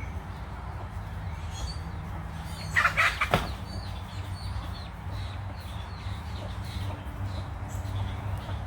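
Birds calling with short faint chirps over a steady low rumble, with one loud brief noisy burst about three seconds in.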